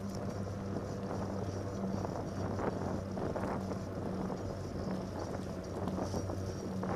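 Fat-bike tires humming steadily on wet pavement, with wind buffeting the microphone and a few brief rattles over bumps in the middle.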